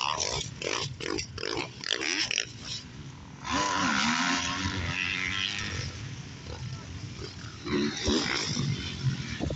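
Motocross bike engines revving as riders take the jumps, the pitch rising and falling with the throttle. A louder, closer bike rises and falls in pitch about three and a half seconds in.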